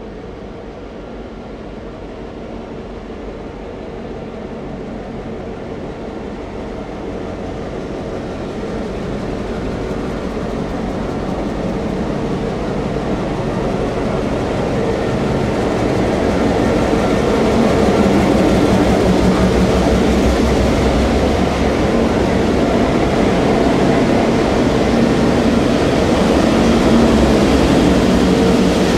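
SSR grain train's S-class, T-class and B-class diesel-electric locomotives pulling out under power. The engine noise grows steadily louder as they draw near for about the first half, then stays loud as they pass.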